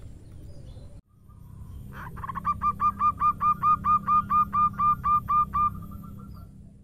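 Zebra dove (perkutut) cooing: an opening note, then a rapid, even run of about fifteen short, clipped coos, some four or five a second, ending in a thin trailing note. A steady low background rumble runs underneath.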